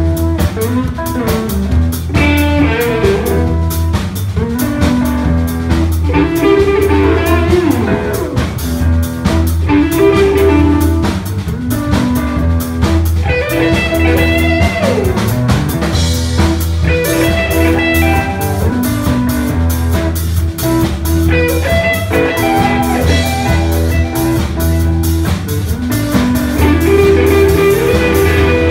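Live blues-rock band playing an instrumental passage: a Les Paul-style electric guitar through a Marshall amp plays lead lines with bent notes over electric bass and a drum kit.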